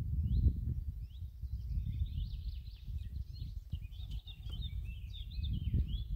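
Wind buffeting the microphone, a loud uneven low rumble, with a small songbird singing a continuous run of quick high chirps and warbling notes behind it.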